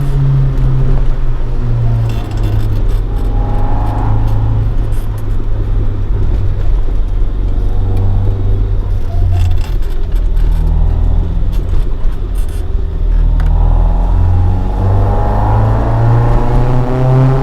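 Toyota AE86 Sprinter Trueno under way, its swapped AE111 20-valve engine on individual throttle bodies breathing through a Fujitsubo Legalis R exhaust. The engine note rises and falls as the car drives, then climbs steadily in revs over the last few seconds.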